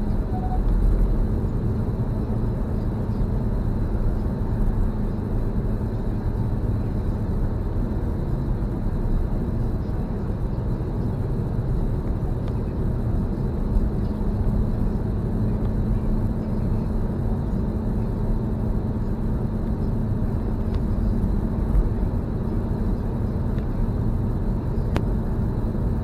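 Car driving at steady speed, heard from inside the cabin: a continuous low rumble of engine and tyres on the road, with a steady low hum.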